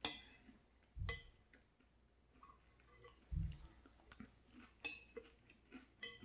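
Metal spoon clinking against a ceramic cereal bowl about five times, the first clink the loudest, as frosted flakes in milk are scooped up, with quiet chewing between. Two dull low thumps come about a second in and about three and a half seconds in.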